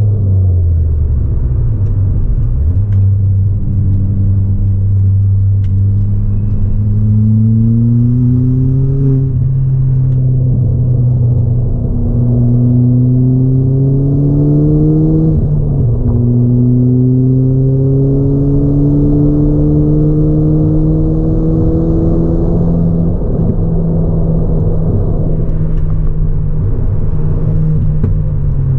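Ford Fiesta ST180's turbocharged 1.6 EcoBoost four-cylinder, fitted with an ITG intake and a 3-inch Gravity Performance exhaust, heard from inside the cabin during a track lap. The engine note falls at the start, rises under acceleration, drops back sharply about nine and fifteen seconds in, holds steady, then falls away near the end.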